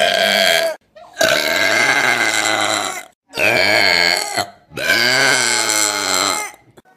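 A person burping loudly, over and over: the end of one burp, then three long ones of about one to two seconds each, each with a wavering pitch and a short gap between them.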